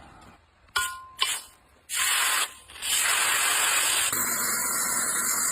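Steel knife blade being sharpened: two short scrapes with a brief metallic ring about a second in, then a loud, steady hissing grind from about two seconds in.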